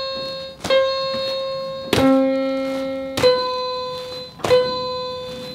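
Giant electronic floor piano mat played by stepping on its keys: single synthesized piano notes about every second and a quarter, mostly one repeated high note, each ringing on and fading until the next. About two seconds in, a lower note sounds together with it.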